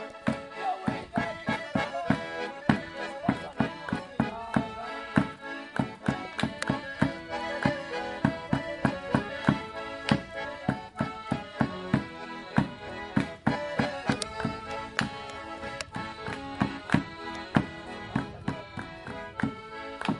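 Two accordions playing a traditional folk tune, with a bass drum struck on a steady beat throughout.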